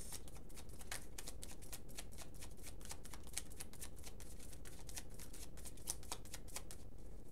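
A deck of tarot cards shuffled by hand: a steady run of quick, crisp card snaps, several a second.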